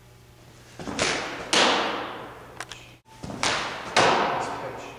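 Pitched softballs smacking into a catcher's mitt twice, each loud pop preceded about half a second earlier by a lighter knock, with the echo of a large indoor hall after each.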